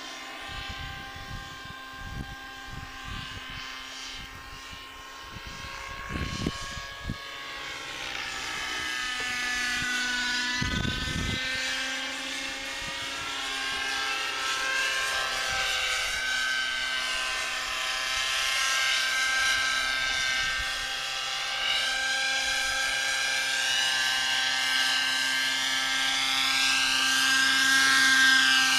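A 600-size nitro radio-control helicopter flying aerobatics. The whine of its engine and rotors bends up and down in pitch as it climbs and swoops, and grows louder as it comes down low near the end. A few gusts of wind rumble on the microphone in the first dozen seconds.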